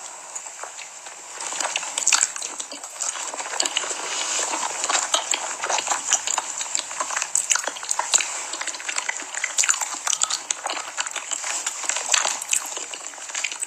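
Close-miked food sounds: dense, irregular crackling and wet clicking.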